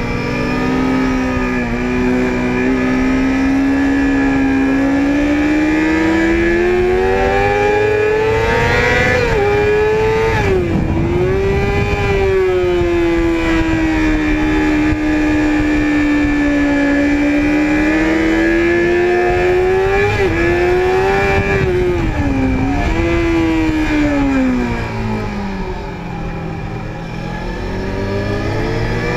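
Sport motorcycle engine recorded onboard, its pitch climbing steadily under power for the first nine seconds or so. It drops sharply about ten seconds in, holds a steady note, dips twice more around twenty seconds in, and eases off briefly near the end before rising again. A steady rumble of wind and road noise runs underneath.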